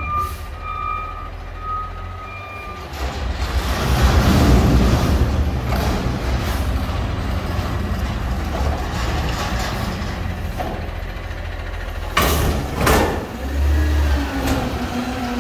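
Front-loader garbage truck's backup alarm beeping steadily for the first few seconds. Then its diesel engine revs up loud to power the hydraulic forks as they pick up a dumpster, with two metal clanks near the end and the engine pitch rising as the lift begins.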